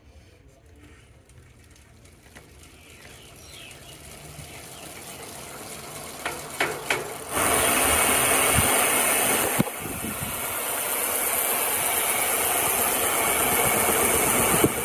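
Shimano Deore FH-M525 rear hub's freehub ratcheting as the wheel spins. It starts faint and grows louder, with a few sharp clicks, then turns into a loud, steady buzz from about seven seconds in.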